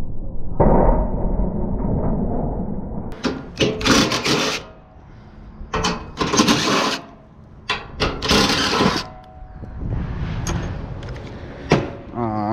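Several loud clattering bursts, some with a faint ring, over a steady low rumble.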